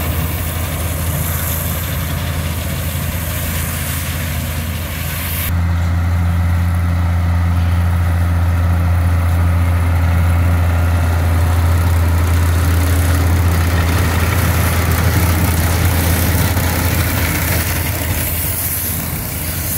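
Fendt tractor's diesel engine running steadily as it pulls a Krone Comprima round baler-wrapper, with a deep, even hum; the sound gets louder and fuller about five and a half seconds in.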